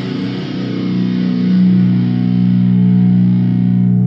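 Electric guitar chord struck through a distorted amp and left ringing, the low notes swelling a little louder about a second and a half in while the upper part fades near the end. A steady low amp hum runs underneath.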